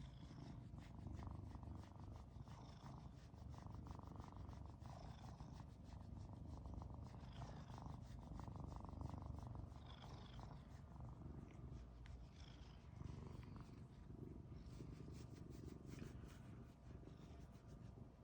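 Orange tabby cat snoring faintly in its sleep: a low rumbling breath sound that swells and eases every couple of seconds, with a faint high squeak on many of the breaths.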